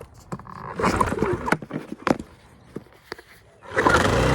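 Sportsman 1000i inverter generator being pull-started with its choke closed: a few short rattles and knocks from the recoil starter, then the engine catches near the end and runs steadily.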